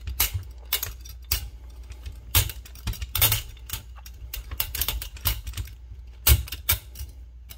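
M4 buffer spring being worked out of the buffer tube by hand, its steel coils scraping and clinking against the tube and each other in irregular metallic clicks and rattles, the sharpest about six seconds in.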